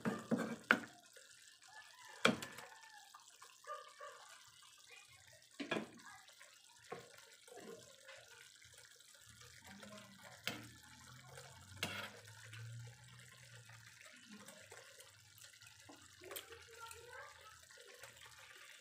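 Small litob clams simmering in their own released broth and oyster sauce in a nonstick frying pan: a soft bubbling with scattered sharp pops and clicks.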